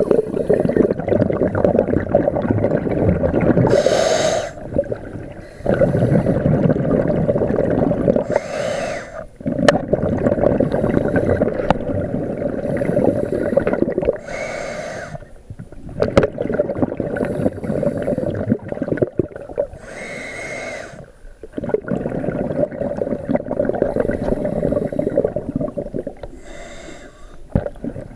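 Scuba diver breathing through a regulator underwater: a short hiss on each inhale and a longer rush of exhaust bubbles on each exhale, five breaths about five to six seconds apart.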